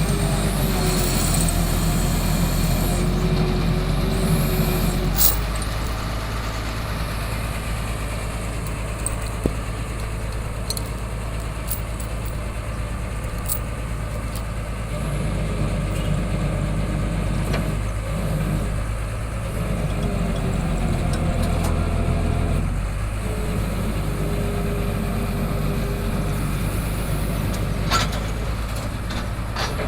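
Diesel engine of heavy machinery running steadily while concrete piles are lowered. Its note shifts a little a few times, with a few sharp clinks over it.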